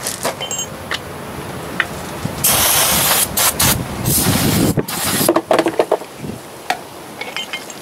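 Aerosol brake cleaner sprayed in two hissing bursts of about a second each, a few seconds in, with a short third spurt after them.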